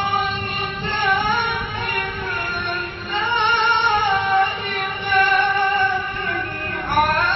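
Quran recitation in the melodic chanted style: a single high voice holding long, ornamented notes that bend up and down, with a short break about three seconds in and a new rising phrase near the end.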